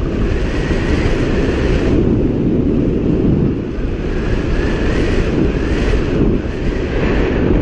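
Wind rushing over the microphone of a camera on a hang glider in flight: a loud, steady rumble, with a faint whistle rising and falling above it.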